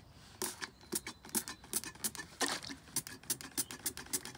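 Rapid, uneven light clicks and ticks, with one short spray hiss about two and a half seconds in as the trigger sprayer spritzes onto a microfibre towel.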